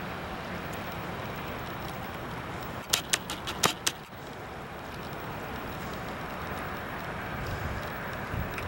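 Steady wind and water noise over a choppy lake, with a quick run of sharp clicks about three seconds in.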